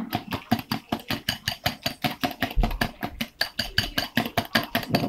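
Wire whisk beating a liquid egg and milk custard mixture in a glass mixing bowl, its wires clicking against the bowl in a rapid, steady rhythm of about seven strokes a second.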